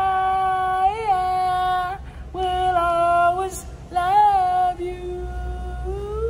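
A woman singing unaccompanied. She holds long notes in several phrases, with short breaks between them.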